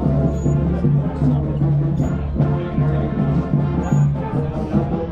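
Music with a strong, steady bass line.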